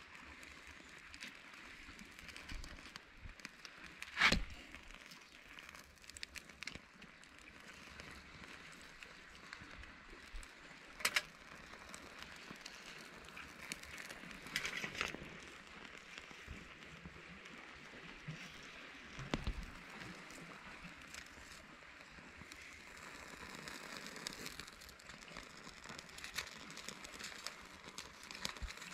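Birch bark burning with a faint crackle while pieces of bark are handled, with a few sharp snaps, the loudest about four seconds in.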